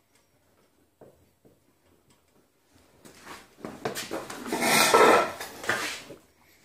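Loud rubbing and scraping handling noise with some clatter, swelling from about three seconds in and lasting about three seconds, after a few faint taps.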